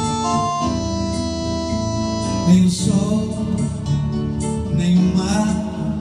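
Acoustic guitar strummed over held keyboard chords, the song's intro. In the second half a man's singing voice comes in with the guitar.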